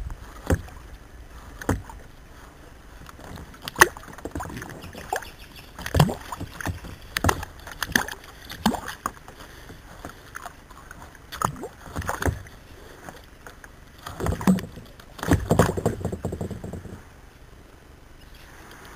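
Irregular knocks and clunks on a kayak hull, with water sloshing and splashing alongside, as a hooked turtle is fought and brought to the kayak.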